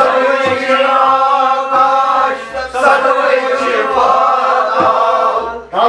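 A group of voices chanting a devotional hymn together over sustained instrumental tones, with a hand drum beating about twice a second. The sound dips briefly near the end.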